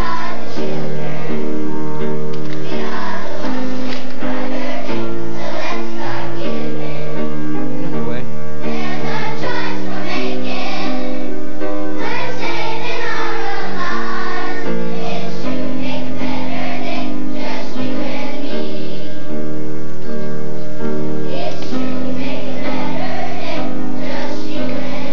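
Children's choir singing together over instrumental accompaniment that holds steady chords underneath.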